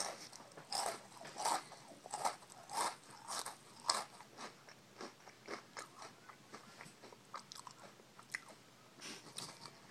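Someone chewing a mouthful of dry Cheerios: a steady run of crisp crunches about one and a half a second, growing fainter after about four seconds as the cereal breaks down.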